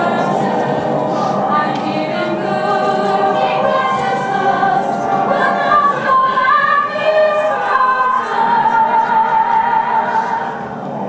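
Stage musical number sung by a choir of cast voices, with one voice holding a long wavering note near the end.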